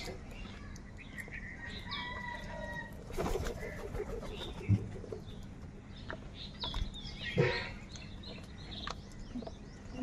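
A flock of house crows feeding together: wings flapping in short flurries, scattered harsh calls and a few higher chirps, and one sharp knock a little before halfway.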